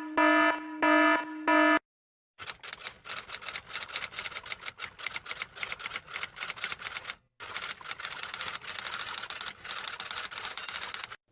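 A few short electronic beeps in quick succession, then after a brief pause a long run of rapid, uneven key clicks of typing, with one short break partway through.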